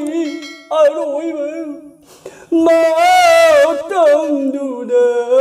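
An elderly man singing a Nata Sankirtan (Manipuri devotional) melody unaccompanied, in long held notes with a wide wavering vibrato. He breaks off briefly about two seconds in, then starts a new phrase.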